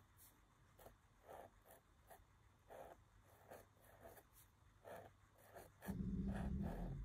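Zebra G pointed dip nib strokes on paper, faint short scratches about every half second as capital letters are drawn. Near the end a louder low hum lasts about a second.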